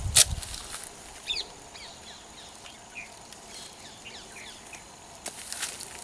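Small birds chirping: short, high calls that drop in pitch, coming every half second or so through the middle, over a quiet rural background. A single sharp knock sounds just at the start.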